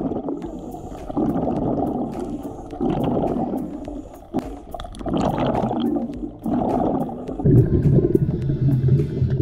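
Underwater rumble of a scuba diver's exhaled regulator bubbles, coming in surges about a second long with short quiet gaps, with faint clicks of handling over them. Near the end it turns into a louder, steadier low rumble.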